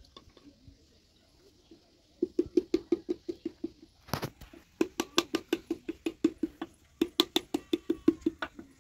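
Flat wooden paddle beating the wall of an unfired clay pot in quick, even knocks, about five a second, shaping and thinning the pot by hand. The beating starts about two seconds in and pauses briefly twice, with one louder thud about four seconds in.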